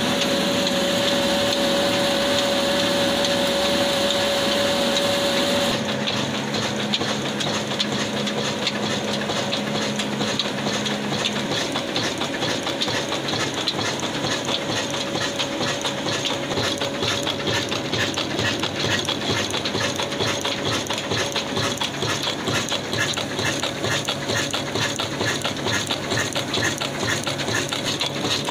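Old black Ruston-type single-cylinder diesel engine running steadily under load, driving a wheat grinding mill through flat belts and a line shaft. For the first six seconds a steady whine and hiss from the spinning belts and pulleys is loudest; after that the engine's own fast, even beat takes over.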